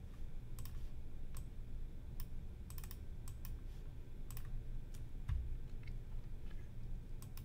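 Computer mouse clicking at irregular intervals, about a dozen short sharp clicks, some in quick runs of two or three, over a low steady background hum.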